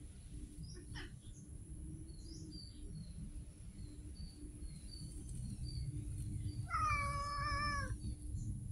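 A domestic cat meowing once, a single call of about a second near the end that falls in pitch as it finishes, over a low steady background rumble.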